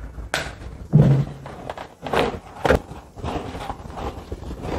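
Several sharp clicks and knocks of plastic wiring connectors and pliers being worked by hand as a motorcycle's ignition-switch and handlebar-control connectors are unplugged.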